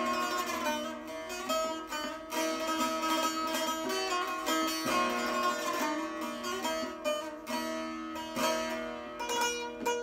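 Şeştar, a six-string long-necked Turkish lute, played solo in a free improvisation: quick runs of plucked notes over steady ringing low drone notes that break off briefly now and then.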